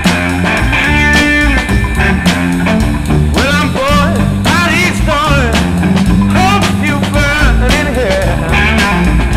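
Rock music with guitar, a lead line bending notes up and down through the middle.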